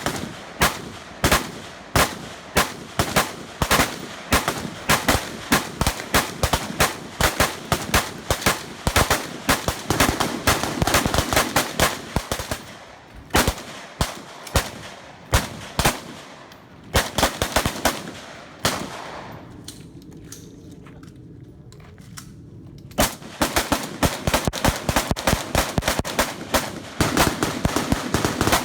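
Several AR-15 rifles firing rapid semi-automatic shots in quick succession. About two-thirds of the way through the firing thins to a few scattered shots, then picks up again near the end.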